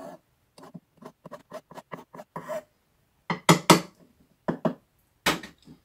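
Hand file rasping across the end of a wire rivet poking through a brass plate, squaring it off: a quick run of short strokes, about five or six a second. Over the last couple of seconds come a few louder metal knocks and clinks as the file and plate are handled.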